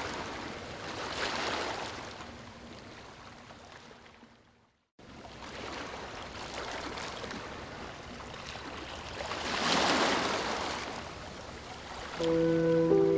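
Ocean waves washing in and ebbing, with swells about a second and a half in and again about ten seconds in. The sound cuts out briefly about five seconds in. Held music chords come in near the end.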